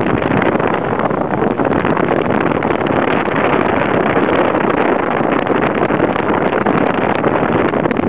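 Steady rushing noise on the open deck of a boat under way at sea: wind blowing across the microphone over the boat's running engine and passing water.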